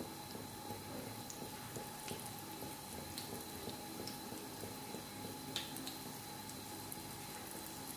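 Gram-flour pakoras frying in hot oil in a frying pan: a soft, steady sizzle with small scattered pops.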